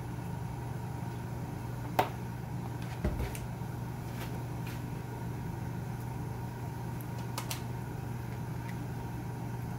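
Kitchen handling sounds over a steady low hum: a sharp click about two seconds in and a dull thump about a second later as the plastic oil bottle is closed and set down, then a few light clicks and knocks of utensils.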